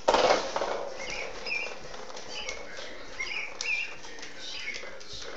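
Small hooves of a pygmy goat kid tapping and pattering on a hardwood floor, with short high chirping squeaks recurring through it. A brief loud rush of noise at the very start.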